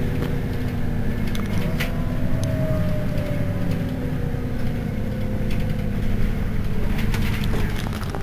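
Mercedes-Benz Citaro city bus idling at a stop, heard from behind: a steady low engine drone. A faint higher tone slowly falls in pitch through the middle, and a few light clicks come near the end.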